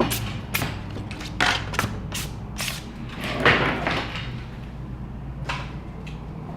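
Short scraping strokes on an iPod touch frame, about two a second, as leftover glass and adhesive are cleaned off. A longer scrape comes about halfway through and one more near the end.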